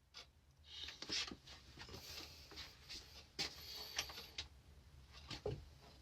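Faint handling noises: scattered light taps and clicks with soft rustling between them.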